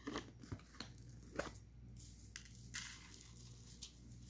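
Dry breadcrumbs poured from a canister into a bowl: a soft hiss about three seconds in, after a few light clicks from handling the canister. Faint throughout.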